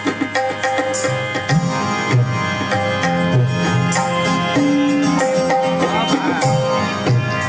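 Qawwali ensemble's harmoniums and tabla playing an instrumental passage: the harmoniums hold steady chords, and the tabla's deep bass strokes come in about a second and a half in and keep a rhythm.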